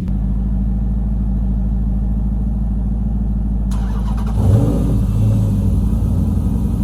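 Car engine running at a steady idle, with a brief throttle blip about four and a half seconds in.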